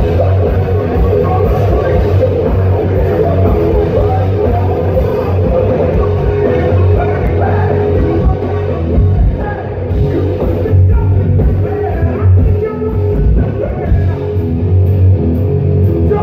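Live hard rock band playing loudly: distorted electric guitars, bass and drums with a singer, heard from the crowd of a concert hall.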